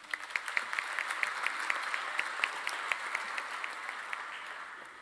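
Audience applauding, a dense patter of many hands that begins at once and dies away near the end.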